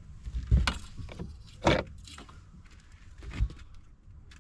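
A few sharp knocks and rattles, three of them much louder than the lighter clicks in between.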